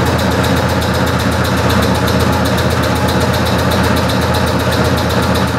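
Electric piston air compressor on a horizontal tank, running to refill the tank after air has been let out. It makes a fairly loud, steady chugging with a fast, even pulse from the pump strokes.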